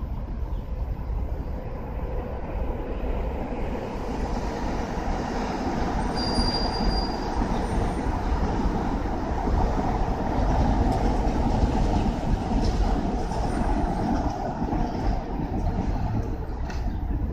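Long Island Rail Road train running past: a continuous rumble of wheels on the track that swells through the middle, with a brief high squeal about six seconds in.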